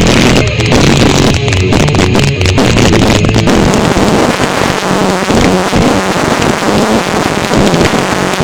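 Bass-heavy music played very loud through a Logitech Z-623 2.1 computer speaker system with its subwoofer, picked up off the speakers.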